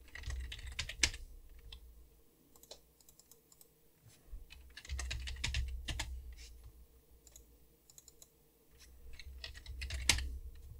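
Typing on a computer keyboard, in three short runs of keystrokes with pauses between, as short names are keyed in.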